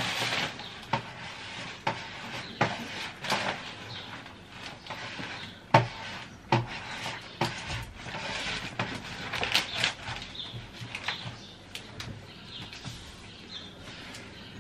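Self-adhesive contact film being stretched and smoothed onto a kitchen countertop by hand: irregular light taps and crackles of the plastic sheet, with stretches of soft rustling.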